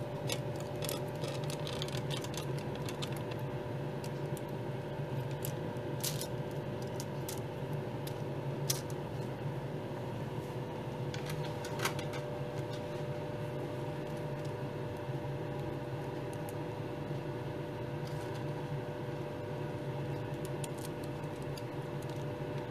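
Steady machine hum, a low tone with a fainter higher one, with scattered light clicks and taps on top, the sharpest around 6, 9 and 12 seconds in.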